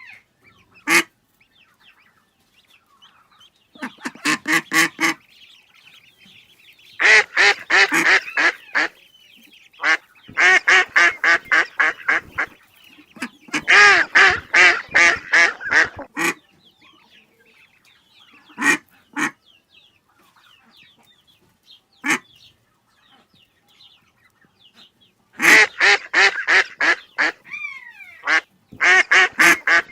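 Ducks quacking in repeated bouts of rapid, harsh quacks, about five or six to the second, each bout lasting one to three seconds with pauses between. Faint high-pitched calls carry on in the gaps.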